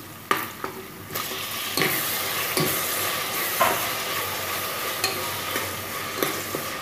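Hot oil sizzling in a metal pot as chopped tomatoes are added and stirred in with a ladle; the sizzle grows louder about a second in. A few sharp clicks of the ladle against the pot.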